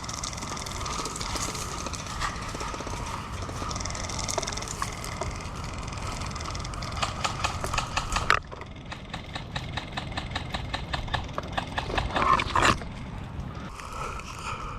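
Footsteps and rustling of clothing and gear as an airsoft player moves on foot, with quick irregular ticks and a brief louder scuffle near the end.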